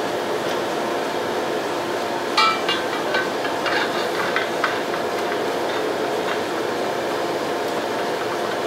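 Sword forge burning with a steady roar, with a ringing clink of the steel blade about two seconds in and a few lighter metallic clicks after it as the blade is worked in and out of the fire.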